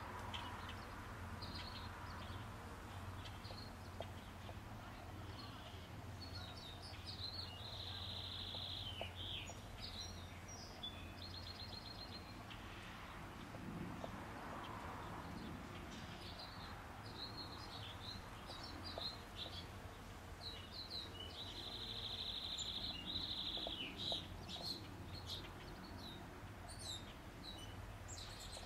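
Wild songbirds singing and chirping, including a long, even trill heard twice, over a steady low background hum.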